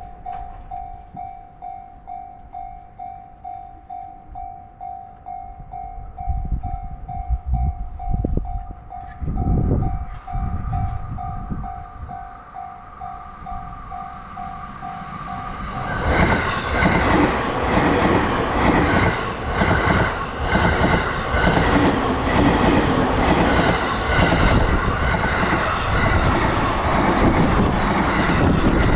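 A Japanese level crossing warning bell ringing with a steady repeated ding. About sixteen seconds in, a JR East commuter electric train passes close by, its wheels clattering rhythmically over the rail joints and drowning out the bell.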